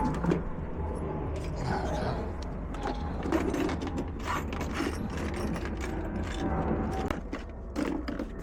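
Irregular mechanical clicking and ratcheting of metal door hardware as a uPVC door's multipoint lock and fittings are worked and adjusted.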